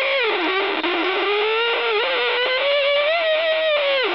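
Portable AM radio's speaker giving a single whistling tone that wanders up and down in pitch. It dips sharply just after the start, climbs slowly, then drops again near the end, typical of a heterodyne whistle as the dial is tuned.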